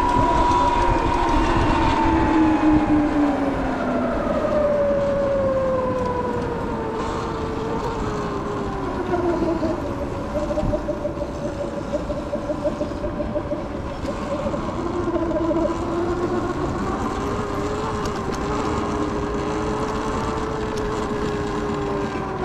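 Electric vehicle motors whining while riding. Several high pitched tones slide steadily lower over the first several seconds as the riders slow, then hold roughly level, over a steady low rushing noise.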